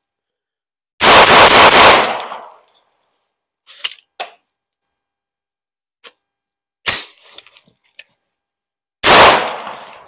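Bear Creek Arsenal .22 WMR AR-15 rifle firing a loud shot about a second in that rings on for a moment, after a misfired round has been re-chambered. Light metallic clicks and a sharp clack follow as the charging handle is worked by hand, because the action is not cycling properly. Another loud bang comes near the end.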